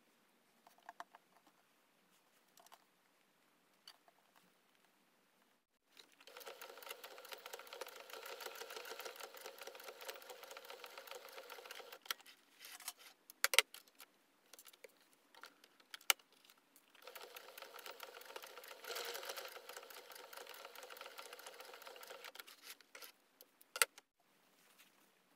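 Electric household sewing machine stitching in two runs of several seconds each, a rapid steady needle chatter, with a few sharp clicks in the pause between runs and after the second. Before the machine starts, only faint fabric handling.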